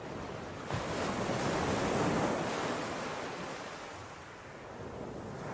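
Ocean surf: a wave breaking and washing up the beach, swelling about a second in and fading away, with another starting near the end.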